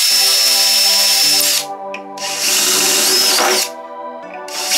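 DeWalt cordless drill running in two bursts of about a second and a half each, working into a 3D-printed plastic part, with a steady high whine from the motor in the first burst. Background music plays underneath.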